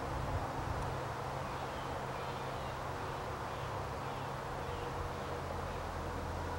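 Steady outdoor background hiss with a low hum under it, and faint high chirps about two to four seconds in.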